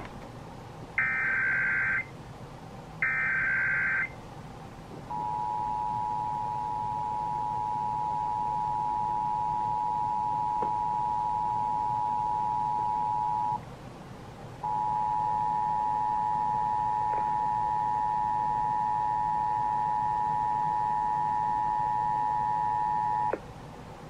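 Emergency Alert System tones from an FM broadcast through a radio speaker: two short buzzy bursts of the SAME header data, then the two-tone attention signal sounding steadily for about eight seconds, breaking off for about a second, and sounding again for about nine seconds. This is the tone alert that opens a national EAS test.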